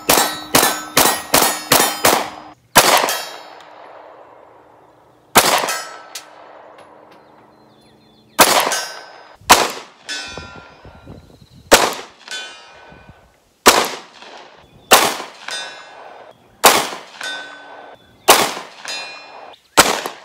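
Springfield Hellcat 9mm pistol being fired at steel targets: a quick string of about six shots in the first couple of seconds, then slower single shots every one to two seconds. Several shots are followed by the ringing ding of a struck steel plate.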